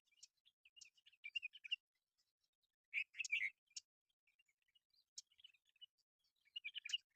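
Birds chirping: quick runs of short, high chirps about a second in, around three seconds in, and again near the end, with quiet between.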